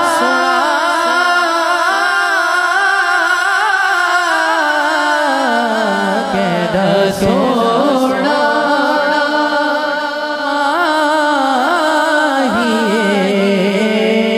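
Male voice singing a naat, an Islamic devotional song, in long, wavering, melismatic held notes with pitch slides.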